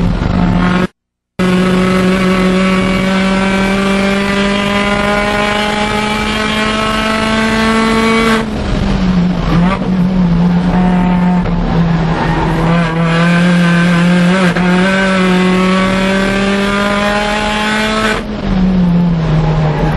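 MINI Cooper S engine at high revs, heard from inside the cabin while driven hard on a track. Its pitch climbs slowly for several seconds, drops sharply about eight seconds in, wavers, climbs again and drops once more near the end. The sound cuts out completely for a moment about a second in.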